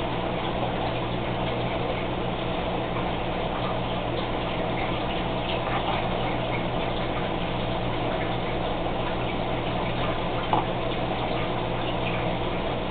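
Steady hum of a small aquarium air pump with continuous bubbling of air into the tank, dotted with small ticks and one slightly louder tick near the end.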